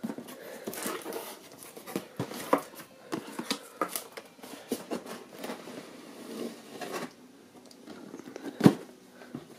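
Cardboard shipping box being handled and opened: flaps rustling and scraping, and a boxed RC car being slid and lifted out, with a sharp knock a little before the end.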